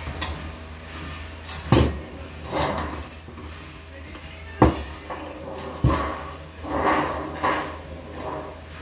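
Galvanized sheet-metal duct stack being handled and knocked on a wooden workbench: three sharp metallic knocks, the one near the middle the loudest, with the thin sheet metal rattling and scraping between them, over a steady low hum.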